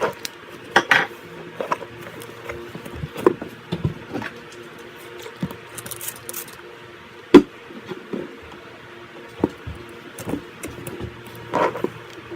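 Slime being squeezed and poked: irregular sharp clicks and pops, the loudest pop a little past the middle, over a faint steady hum.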